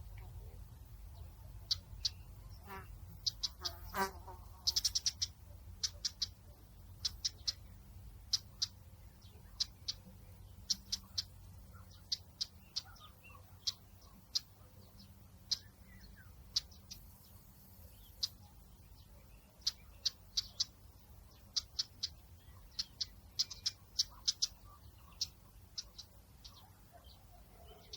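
Small birds chirping: short, high notes scattered irregularly, some in quick runs, over a steady low rumble of outdoor ambience.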